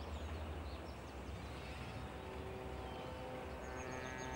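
Quiet garden ambience with faint birds chirping over a low hum. About halfway in, soft sustained music tones fade in and hold.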